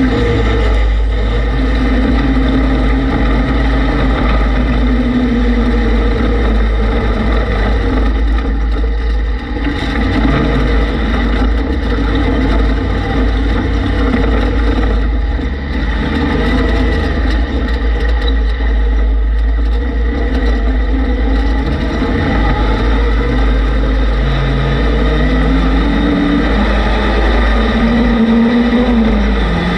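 Off-road vehicle engine running while driving, its pitch rising and falling with the throttle and climbing again near the end, over a heavy wind rumble on the microphone.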